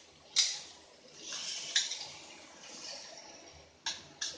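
Metal spatula stirring vegetables in a stainless steel wok: sharp clinks of metal on metal, a couple of them near the end, and a stretch of scraping noise in between.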